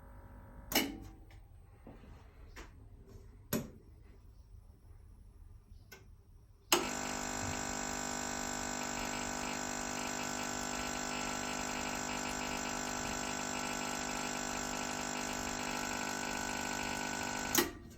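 A few sharp clicks, then a loud, steady mechanical hum of one unchanging pitch that switches on abruptly about seven seconds in, holds level for about eleven seconds and cuts off with a click near the end: a noise coming from an Audi Quattro.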